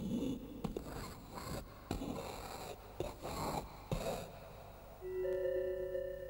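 Soundtrack of a string of short, irregular noisy puffs or hits, then, about five seconds in, two sustained bell-like electronic tones that hold steady.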